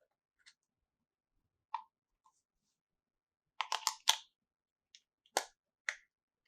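Small plastic toy pieces being handled: scattered light clicks and taps, a quick run of clacks about three and a half seconds in, then two more sharp clacks.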